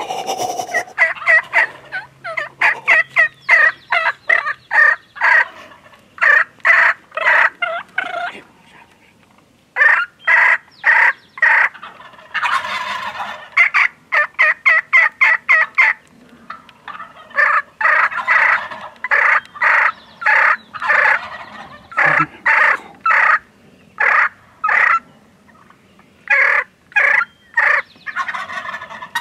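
Several wild turkey gobblers gobbling over and over, the rapid rattling gobbles coming in runs that overlap one another, with only brief pauses between runs.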